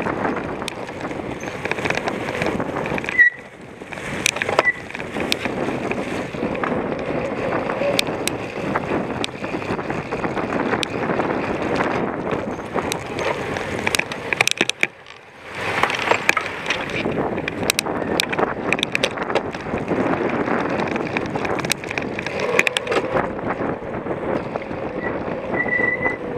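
Cyclocross bike ridden hard over rough ground: constant tyre rumble with many rattling clicks from the bike, briefly easing twice, about three and fifteen seconds in.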